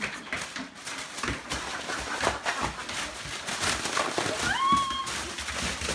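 French bulldog scrabbling about on a vinyl floor, its claws clicking and scuffing irregularly. About four and a half seconds in it gives one short, rising howl-like yowl.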